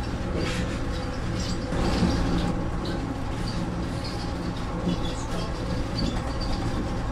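Automated people mover train running along its elevated guideway, heard from inside the car: a steady rumble of the car in motion with scattered light ticks and rattles.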